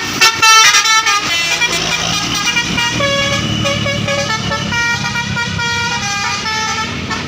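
Tour bus's basuri telolet horn playing a quick melody of short, stepping notes, loudest in the first second. About a second and a half in, the bus's engine starts running under it.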